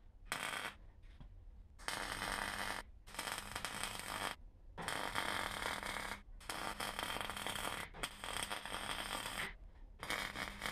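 MIG welder crackling in about seven short runs, each around a second long with brief pauses between them, as a steel stiffening plate inside a car's A-post is welded back in place.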